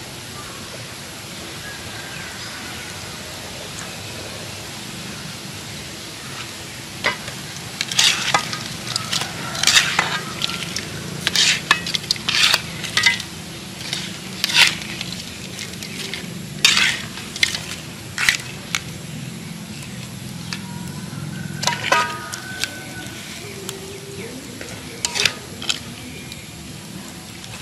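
Butter and oil sizzling on a hot stone slab over a wood fire: a steady hiss with a busy run of sharp pops and spits through the middle stretch and a few more near the end.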